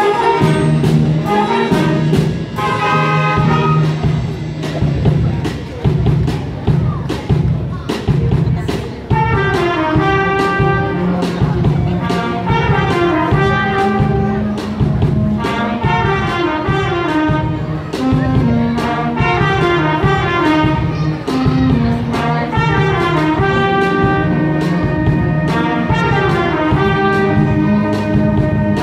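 Student wind band of saxophones, flutes and brass playing a lively piece over a steady drum beat, the full band coming in together on the first note.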